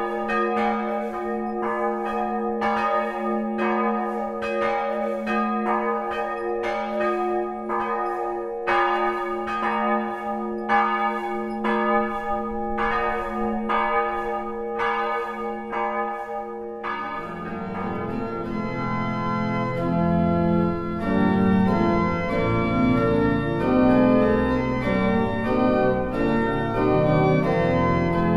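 Church bells ringing in a steady, even rhythm, their tones lingering between strokes. After about seventeen seconds the bells give way to a church pipe organ playing full chords with a deep bass.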